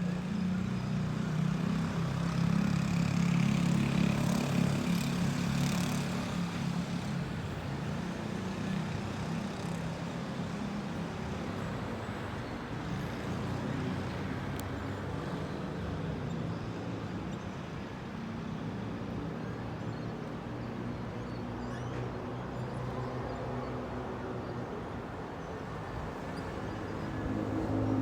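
Urban road traffic: a steady hum of passing vehicles' engines and tyres, louder in the first few seconds and again near the end.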